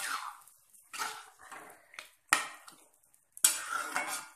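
Metal spatula scraping and knocking against a kadai (wok) as a thick, wet curry is stirred, with sharp strokes about once a second.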